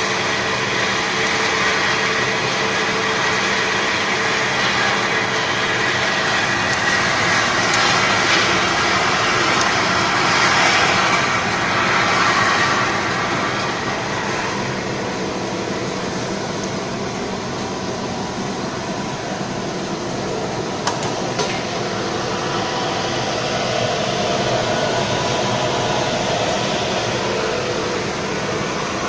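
Nut roasting machine running with a steady motor hum, and the rushing rattle of roasted nuts pouring out of the drum onto the stainless steel cooling table, louder in the first half and easing after about 13 seconds.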